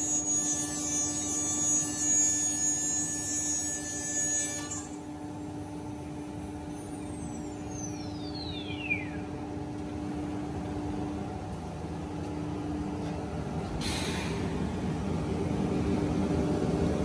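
Holztek CNC router running with a steady hum and several high whining tones, which cut out about five seconds in; the spindle's whine then falls steadily in pitch as it winds down after the cut, over a low steady hum.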